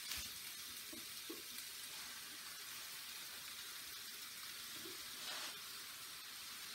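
Beef braciole rolls and onions frying in butter and oil in a pan: a faint, steady sizzle that swells briefly about five seconds in.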